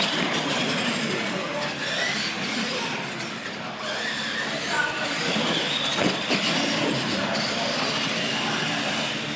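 Electric R/C monster trucks racing on a concrete floor: the motors whine, rising and falling in pitch as the throttle changes, over the rolling noise of the tires.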